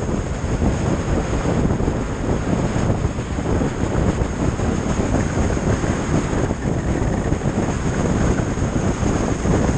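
Wind buffeting the microphone of a camera on a moving motorcycle: a steady, rumbling rush with the bike's running and road noise blended in.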